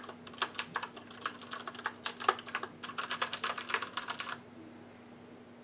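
Cherry MX Blue mechanical keyboard switches on a HyperX Alloy FPS keyboard clicking as keys are typed rapidly, several keystrokes a second. The typing stops a little over four seconds in.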